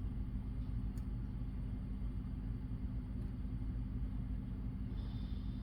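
A steady low mechanical hum, with a faint click about a second in.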